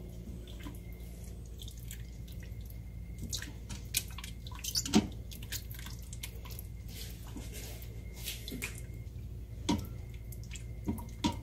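Silicone spatula stirring chicken pieces through thick sauce in a stainless steel Instant Pot inner pot: wet squelching with scattered clicks of the spatula against the pot, over a steady low hum.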